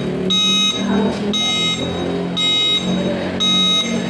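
Electric bike's reverse-warning beeper sounding a high beep about once a second, four beeps in all, over the low hum of the hub motor spinning the lifted wheel in reverse: the new controller's reverse mode is working.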